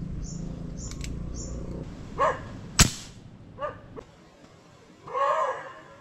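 A dog barking three times, the last bark longer, with one sharp crack about three seconds in. In the first two seconds a steady low hum and a rhythmic high chirping.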